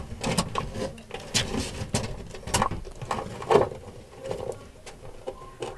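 Irregular clicks, knocks and scrapes as a savanna monitor chomps a small rat in its jaws and shoves it against the wooden wall and floor of its enclosure.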